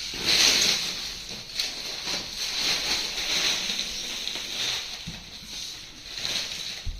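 Packaging being handled while unpacking flat-pack furniture: a continuous rustling and scraping, with a couple of light knocks about five seconds in and near the end.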